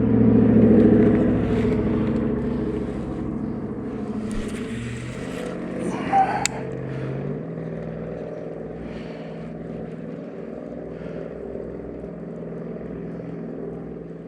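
A motor engine running steadily, loudest at the start and slowly fading, with a brief sharp click about six seconds in.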